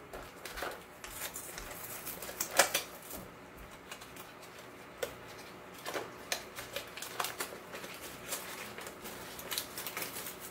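Hands opening and rummaging in a cardboard Cracker Jack box: irregular crinkles, crackles and clicks of the cardboard and paper packaging as it is torn open and searched for the prize.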